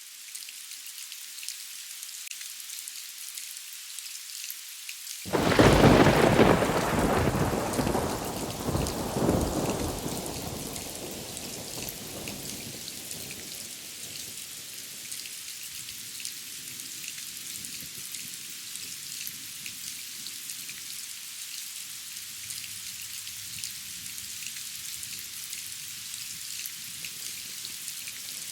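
Steady rain with a sudden loud clap of thunder about five seconds in, rumbling on and swelling once more before dying away over several seconds, then steady rain again.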